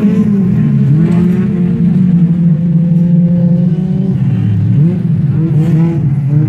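Autocross racing cars' engines revving hard on a dirt track, the pitch climbing and dropping again and again as several cars race past.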